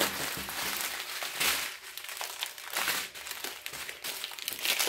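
Clear plastic bags of diamond painting drills being handled and crinkled, an uneven crackling rustle with swells about a second and a half in and again near the end.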